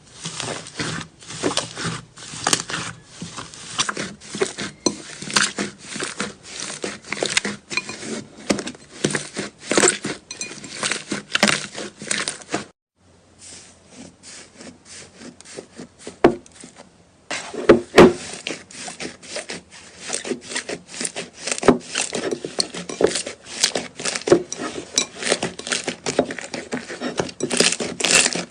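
Slime being squeezed and worked by hand: a dense, continuous run of crackles and pops. It stops for about four seconds partway through, then picks up again.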